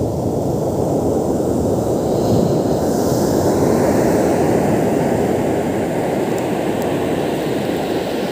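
Surf breaking and washing onto a sandy beach, heavy with wind rumble on the microphone; the wash swells as a wave breaks about three seconds in.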